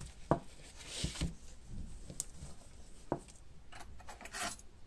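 Hands handling an old wooden walking stick on a tabletop: a few soft knocks of the wood against the table, with brief rubbing and rustling in between.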